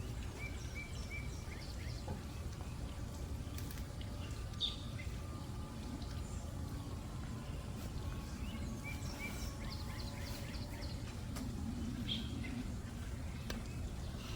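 Outdoor garden ambience: a steady low rumble, with small birds chirping now and then, including a quick run of three short notes near the start and again about nine seconds in.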